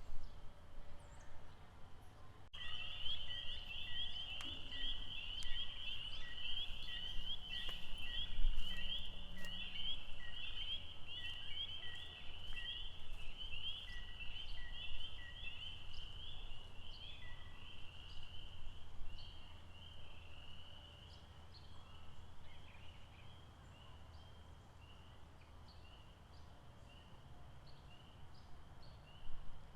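Chorus of calling frogs by a lake: a dense, fast-pulsing high chorus that cuts in abruptly a couple of seconds in and thins out after about twenty seconds, with short repeated notes a little under twice a second, over a steady low rumble.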